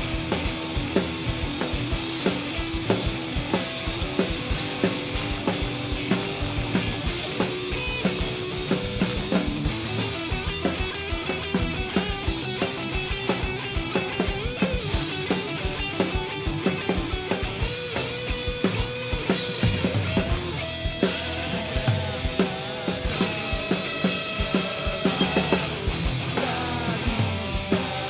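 Rock band playing an instrumental passage without vocals: a drum kit keeping a steady, driving beat under guitars and bass.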